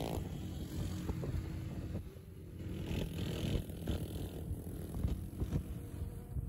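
Motorcycle engines running on the move, with wind rumbling on the microphone and a few brief knocks.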